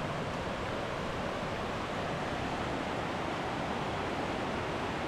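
Steady rush of flowing water from the river and snowmelt waterfalls, an even hiss with no breaks.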